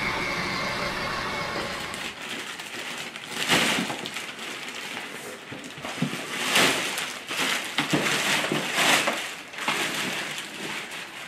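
Clear plastic wrapping crinkling and rustling in irregular bursts as it is pulled and pressed by hand around a boxed ride-on toy car. Before that, a steady running sound from a child's electric ride-on car fades out about two seconds in.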